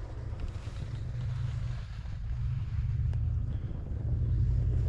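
Wind buffeting the microphone: a low rumble that swells and eases, under a faint hiss.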